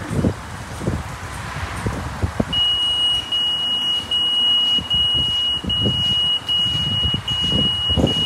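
Electronic beeper of a touchless car wash bay sounding a steady run of long high-pitched beeps, each nearly a second long with short gaps, starting about two and a half seconds in. Irregular low thumps and rumbling sit underneath.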